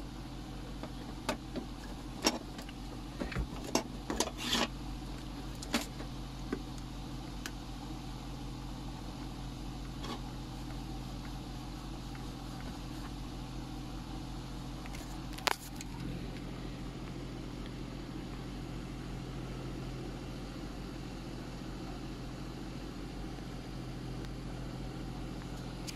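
Scattered light clicks and taps from an LED TV main board being handled on the TV's metal back chassis, with one sharper click in the middle, over a steady low hum.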